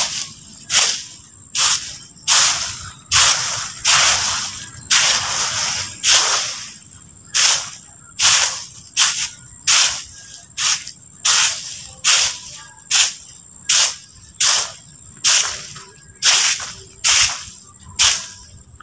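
Stick broom (walis tingting, a bundle of stiff thin sticks) sweeping dry leaves and dirt across bare ground, one scratchy swish per stroke, a little more than once a second, with a few longer drawn-out strokes in the middle.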